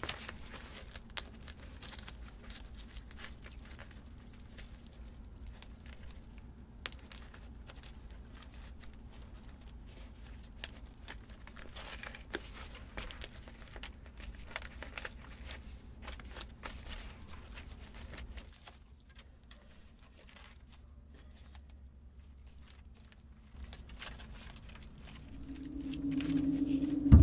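Dry woven cattail leaves crinkling and crackling as fur yarn is worked through the weave by hand, quieter for a few seconds past the middle. Music with a low drum comes in near the end.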